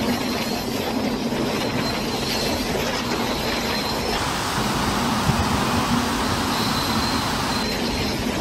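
Steady roar of a storm, strong wind and rough surf, with abrupt changes in the noise about four seconds in and again near the end where the footage cuts.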